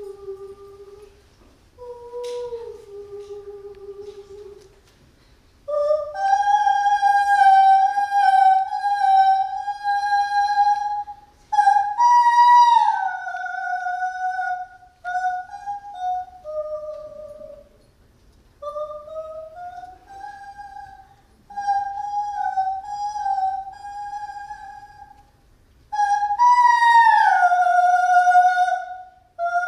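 A woman sings an unaccompanied Andean ceremonial song with no drum or guitar. The first notes are soft and low; about six seconds in she moves to loud, long-held high notes, and twice, near the middle and near the end, she jumps to a top note and slides steeply down from it.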